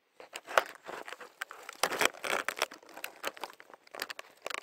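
Irregular close crackling and rustling, starting just after the beginning and going on in uneven bursts, like dry material being crunched or handled near the microphone.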